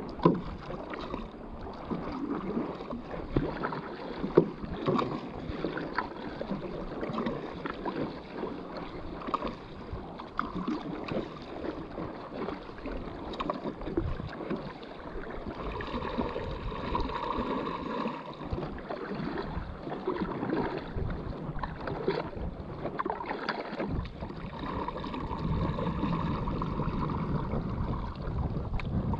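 Paddle strokes on a stand-up paddleboard: the blade dips and pulls through lake water with irregular splashes, and water laps against the board.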